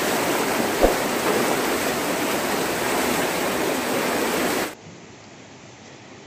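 Shallow mountain river rushing through a narrow rock gorge: a loud, steady rush of water, with one brief thump about a second in. About three-quarters through it cuts off suddenly to a much quieter background.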